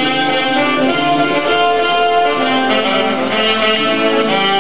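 Live instrumental music played on stage: a melody of held notes over accompaniment.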